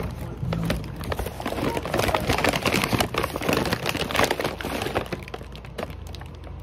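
Clatter of combs and hair-product bottles being handled and put into a container, many quick knocks and rattles that are densest in the middle and thin out near the end.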